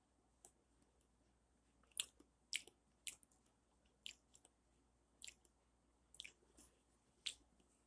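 Quiet, wet lip smacks and mouth clicks, about nine spread irregularly, from a cigar smoker tasting the smoke on his palate.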